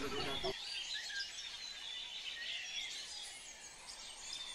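Small birds chirping and tweeting in the background, many short quick chirps; a low hum cuts off about half a second in.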